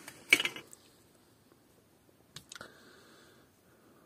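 PTFE thread-seal tape being pulled and wrapped by hand onto a fitting's thread, a sharp crackle near the start and a shorter one about two and a half seconds in.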